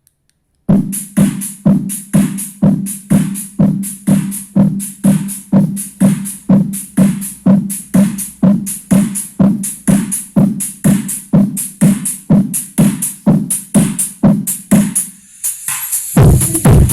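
Mega funk track played loud on a Volkswagen Saveiro's aftermarket car sound system. A fast, evenly repeating electronic beat starts just under a second in, and a heavier, bass-laden section comes in near the end.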